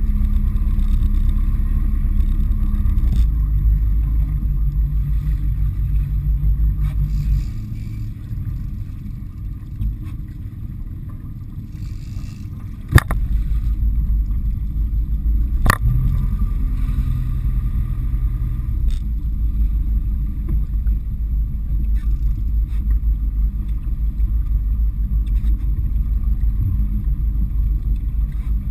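Boat engine running with a steady low drone whose pitch shifts. It falls quieter about a quarter of the way in and comes back with a sharp knock near the middle, and a second knock follows a few seconds later.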